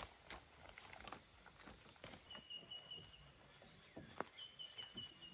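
Quiet bush ambience with faint animal calls: a high, rapidly pulsing trill comes in about two seconds in, alongside a few short high chirps. A sharp click at the very start and light scattered clicks sit underneath.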